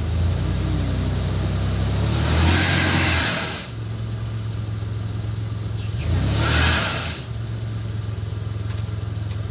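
Pickup truck engine running under load as it tries to tow a car frozen into ice, surging twice with a rush of noise, about two seconds in and again about six seconds in, as the driver gives it more throttle.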